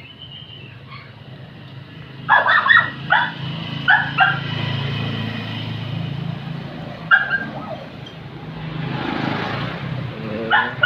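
A dog barking in short runs: about four barks a little over two seconds in, two more near four seconds and two near seven seconds. A steady low hum runs underneath, and a rushing noise rises and falls near the end.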